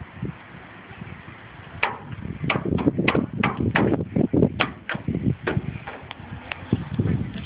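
A toddler's hands slapping and patting the plastic bed-rail cap of a pickup truck: a quick run of sharp pats that starts about two seconds in and goes on for several seconds.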